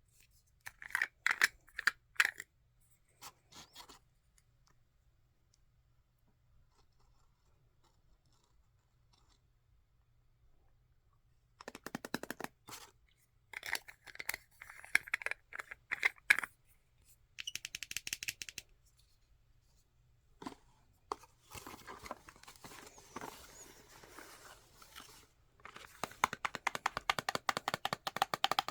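Makeup packaging being handled, crinkled and torn open, in bursts of crackling with a long quiet stretch near the start and a denser run near the end.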